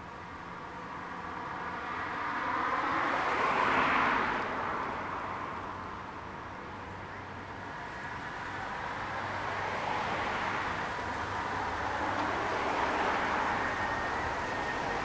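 Vintage tram running slowly toward the listener on a grass-covered track, its running noise mixed with faint whining tones. The noise swells to its loudest about four seconds in, dips, then builds again as the tram comes closer.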